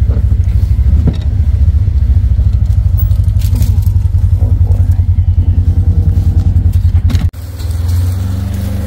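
Vehicle engine running while driving, with a loud, low, pulsing rumble. About seven seconds in it drops off suddenly, then carries on quieter.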